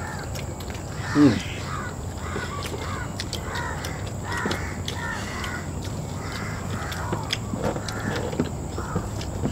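Birds calling over and over, with light clicks and taps from eating by hand off plates. About a second in there is a short, loud, falling voice-like sound.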